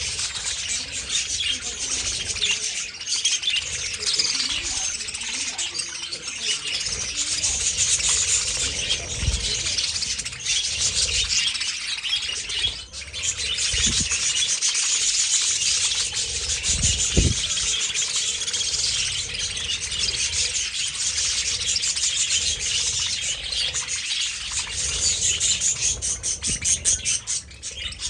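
Many budgerigars chattering and chirping at once in a continuous dense din, with a few short low thuds underneath.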